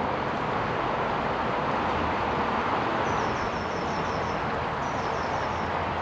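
Steady rushing of flowing river water. In the second half a small bird sings short runs of quick, falling high notes.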